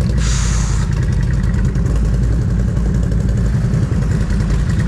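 ATV engines idling, a steady low rumble, with a brief hiss less than a second in.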